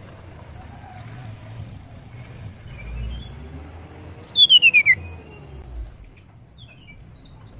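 Blue flycatcher (tledekan) singing: a faint rising phrase, then about four seconds in a loud, fast run of notes falling in pitch, followed by short high chirps.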